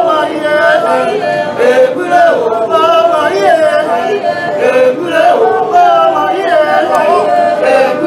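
A group of Pygmy men and women singing together into a microphone, several voices overlapping in a chant-like song with wavering melody lines.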